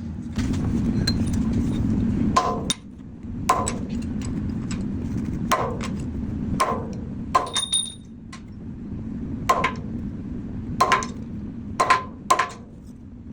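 Hammer blows on hot 52100 steel at the anvil, hand-forging a knife blade: about a dozen irregular strikes, roughly one a second, each with a short ring. The steel is scaling heavily under the blows. A steady low rumble runs underneath, louder in the first few seconds.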